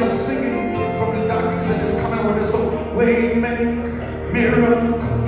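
Church worship music: held chords that shift every second or two, with voices singing over them.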